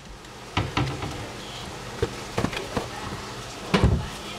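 Food frying in a pan with a steady crackling sizzle, broken by a few sharp knocks and clatters of cookware, the loudest near the end.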